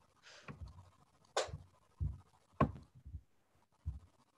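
A handful of soft clicks and dull knocks, spaced irregularly, picked up by a computer microphone while the screen is being scrolled.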